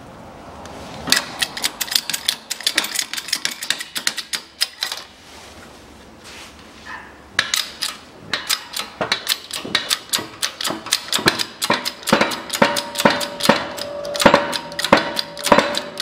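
Rapid metallic clicking and knocking from a shop press as a new outer bearing race is pressed into a Land Rover Defender rear hub through a driver plate. The clicks come in quick runs, stop for a couple of seconds, then start again, and a faint metallic ring comes in near the end as the race seats.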